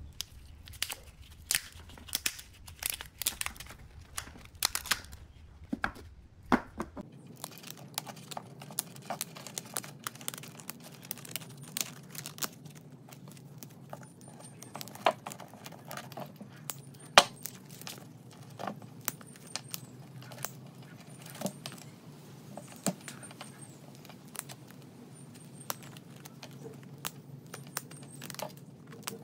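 Hands tearing and picking apart the brittle remains of an old loudspeaker's paper cone from its spider and voice coil: irregular crackles, small rips and sharp clicks, with side cutters snipping at it near the end.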